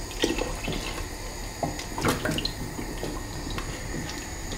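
Beef stock poured from a plastic measuring jug into a stainless steel stockpot of sauce, then stirred in with a wooden spoon, with a few short knocks against the pot, the loudest about two seconds in.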